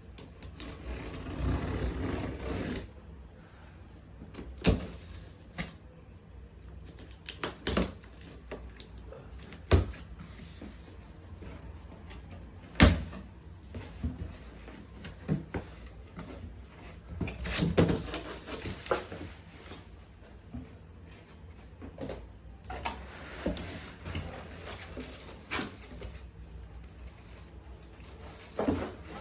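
Packaging being handled and taken apart while unboxing a turntable: rustling for a couple of seconds about a second in and again past the middle, with scattered sharp knocks and clicks, the loudest about halfway through.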